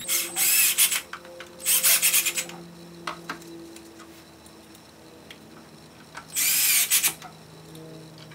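Cordless drill with a Phillips bit driving screws into the plastic gearbox housing to fasten the bearings, in three short runs: two in the first couple of seconds and one about six seconds in.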